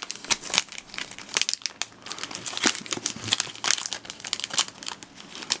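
Thin plastic pouch crinkling and crackling in irregular bursts as it is handled and pulled open by hand.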